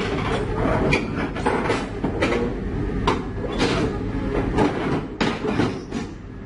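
Kobelco crawler excavator's diesel engine running steadily while its steel tracks clank on the self-loader truck's steel deck and ramp, sharp knocks coming irregularly about twice a second.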